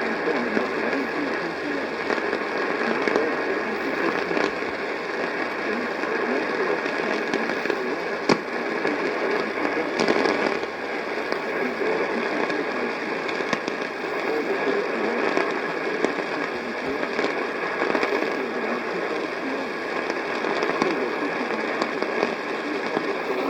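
AM radio reception full of static: a steady hiss with scattered crackles and one sharper crack about eight seconds in.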